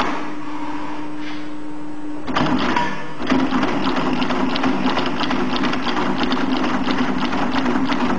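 xs0012 lockstitch moccasin sewing machine: a steady motor hum, then about two seconds in the machine starts stitching, a fast, even mechanical clatter that carries on as leather is fed under the needle.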